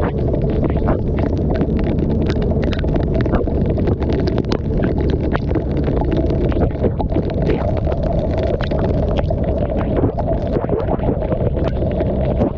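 Yamaha TMAX maxi-scooter's parallel-twin engine running at a steady pace under way, with wind noise on the microphone. Many sharp ticks of rain striking the camera sound over it.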